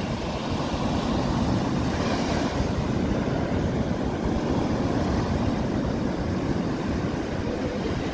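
Strong wind rumbling on the microphone over the steady wash of surf breaking on the beach.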